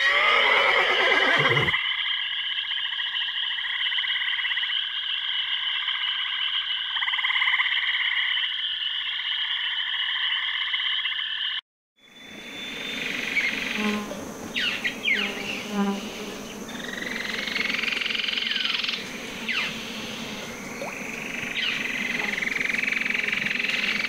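A dense chorus of frogs and insects trilling steadily, with an animal call falling in pitch in the first two seconds. About halfway through it cuts out for a moment, then resumes as a fuller chorus with scattered short chirps.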